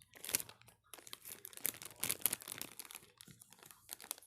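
Plastic wrapper of a packaged bun crinkling and crackling in irregular bursts as it is handled and torn open.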